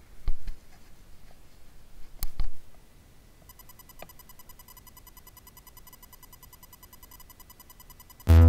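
Two short, sharp clicks or knocks about two seconds apart, then a faint, even ticking, with loud electronic music cutting in right at the end.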